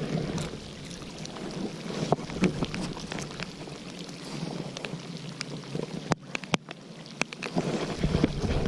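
Wind buffeting the microphone outdoors, a low rumbling that grows stronger near the end, with scattered sharp clicks and taps through it.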